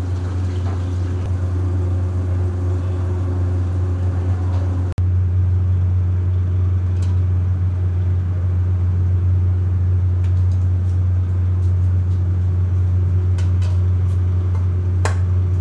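Steady, loud low hum of commercial kitchen equipment running, with a few light clicks of utensils.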